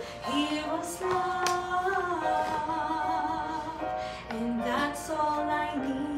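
A woman singing a slow melody, holding long notes with vibrato.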